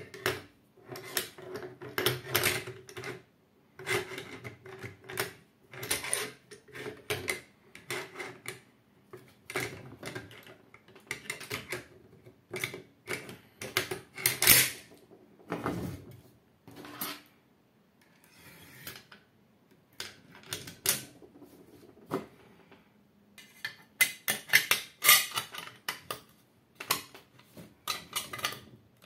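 Steel parts of a Norinco Type 56 AK rifle clicking, sliding and clacking as it is put back together: the bolt carrier and gas piston worked in the receiver, the recoil spring fitted and the dust cover set in place near the end. The clicks come in irregular clusters, the loudest about halfway through.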